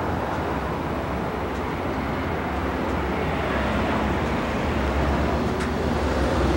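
Steady outdoor background rumble picked up by a camcorder's microphone, low and even with no clear single source, and a faint click a little after five seconds in.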